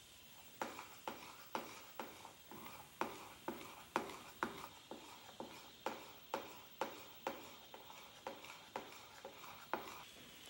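A metal spoon stirring thick cooked polenta in a pot, knocking and scraping against the pot about twice a second.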